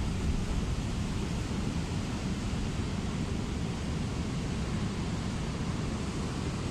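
Steady wind noise on the microphone mixed with the wash of the sea: an even, rumbling hiss, heaviest in the low end, with no distinct events.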